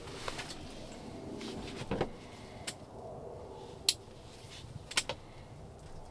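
A few light handling sounds: a soft knock about two seconds in, then three sharp clicks about a second apart, over a quiet background.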